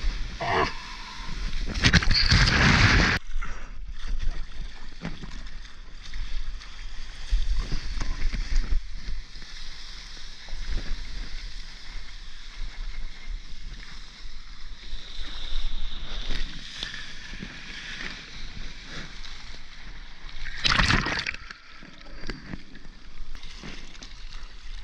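Seawater sloshing and splashing against a soft-top surfboard as the surfer lies and paddles on it. A loud rush of whitewash comes about two seconds in, and another loud splash about twenty-one seconds in.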